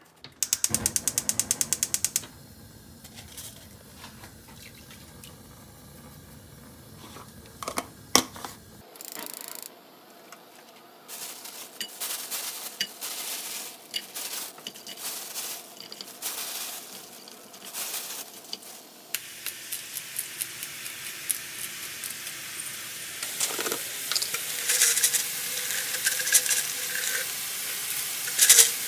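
Cooking in a kitchen: a rapid run of clicks at the start, a sharp knock about eight seconds in, then utensils clinking and knocking. Food sizzles in a frying pan, growing louder toward the end.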